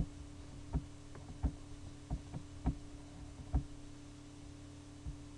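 Irregular soft clicks and knocks of a computer mouse being used, about eight in the first three and a half seconds and one more near the end, over a steady electrical hum.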